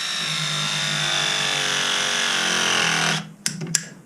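A small electric power tool's motor running steadily at high speed, its pitch sagging slightly near the end before it stops about three seconds in, followed by two sharp clicks.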